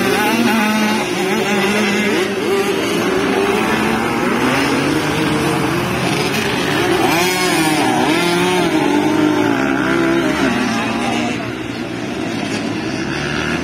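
Several motocross bikes racing on a dirt track, their engines revving up and down through the gears, several at once, overlapping.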